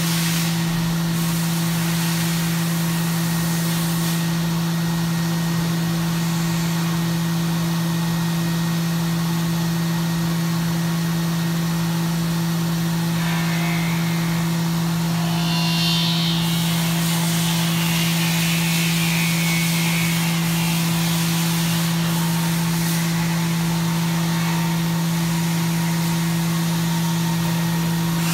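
CNC milling machine machining aluminium, running with a steady low hum. About halfway through, a higher-pitched cutting whine comes in for several seconds and fades.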